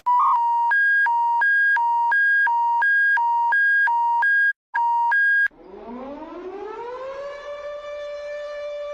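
Emergency alert alarm: two buzzy electronic tones, one high and one low, swap back and forth about three times a second, with one brief break. About five and a half seconds in they stop, and a siren winds up in pitch and then holds one steady note.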